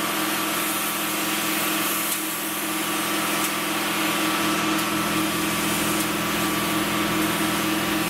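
Gravity-feed air spray gun hissing steadily as paint is sprayed, over a steady machine hum with a fast low pulse underneath.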